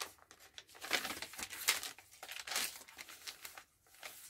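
Paper pages of a handmade junk journal rustling and crinkling as they are handled and turned, in several short, uneven rustles.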